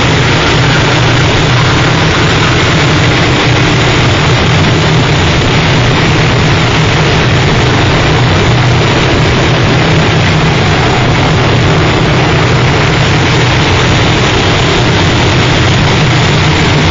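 Harsh noise music: a loud, unchanging wall of dense noise with a heavier low rumble underneath, no beat or melody.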